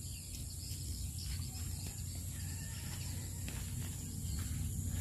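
Rural field ambience at dusk: a steady high-pitched insect drone goes on without a break over a low rumble, with a few faint ticks.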